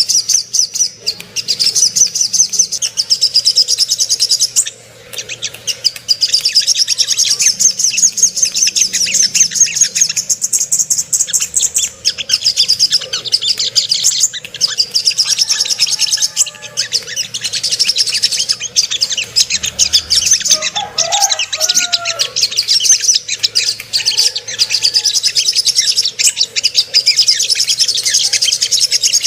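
Spiderhunter (sogok ontong) song: a long, unbroken stream of very rapid, high-pitched chirps, with only a brief break about five seconds in. It is a lure call meant to make other birds of the species sing and turn aggressive.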